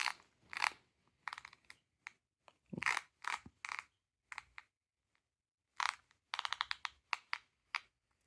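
Master combination padlock being dialled and opened by hand: groups of small clicks from the turning dial and lock mechanism, with a quick run of clicks about six seconds in.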